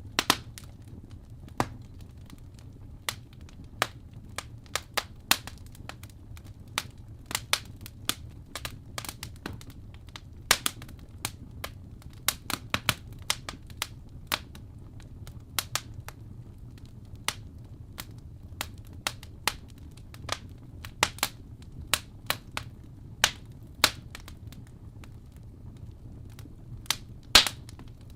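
Wood fire crackling: irregular sharp pops and snaps, some much louder than others, over a low steady hum.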